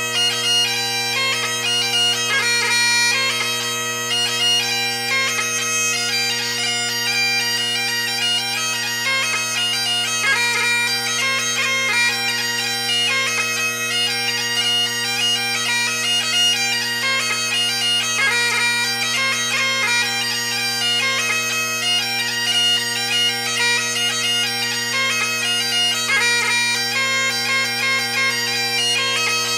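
Great Highland Bagpipe played solo: the drones hold a steady low chord beneath a chanter melody broken by quick grace notes.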